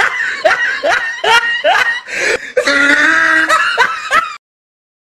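Laughing in quick repeated bursts that cuts off suddenly about four seconds in.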